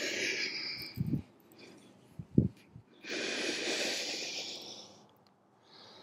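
Two long, audible breaths from a person holding a seated forward fold, one at the start and one about three seconds in, with two short low thumps between them; the second thump, about two and a half seconds in, is the loudest sound. A fainter breath follows near the end.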